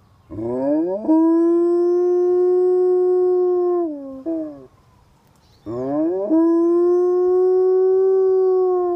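Alaskan Malamute howling: two long howls, each sliding up into a held steady note that drops away at the end, the second starting about a second after the first ends.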